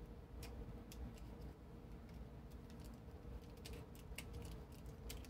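Quiet room tone: a faint steady hum with a few scattered faint clicks.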